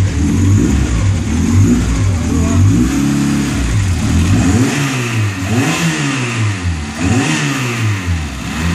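Peugeot 106 Rallye 1.3 Group N car's four-cylinder petrol engine idling, then revved about four times in the second half, each rev rising and falling in pitch, before settling back to idle near the end.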